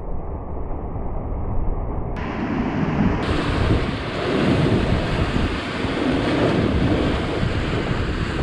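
Rough sea waves breaking and surging against coastal rocks, with strong wind buffeting the microphone in a deep rumble. About two seconds in, the hiss of the surf comes in, swelling with each wave.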